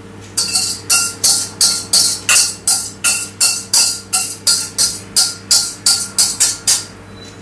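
A utensil scraping the inside of a small saucepan in quick regular strokes, about three a second, as the last of a raspberry gelatine mixture is scraped out. The strokes start about half a second in and stop near the end.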